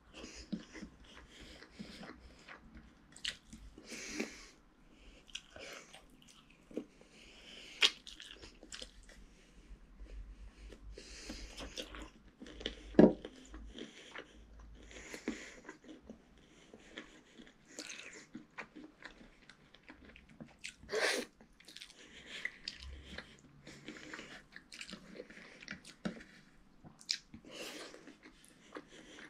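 A person eating rice and curry by hand and chewing close to the microphone: wet chewing and smacking mouth sounds with irregular small clicks, a few of them louder.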